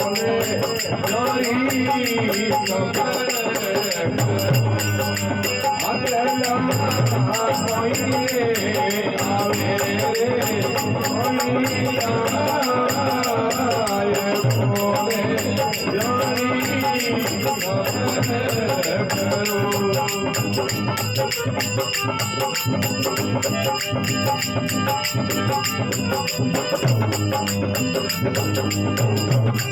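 Rajasthani bhajan music without singing: a wavering melody over a steady jingling, rattling percussion rhythm.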